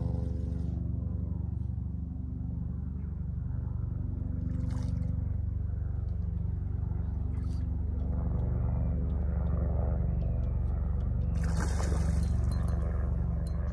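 A steady low engine hum, growing a little louder about two-thirds of the way through, with a brief scratchy noise near the end.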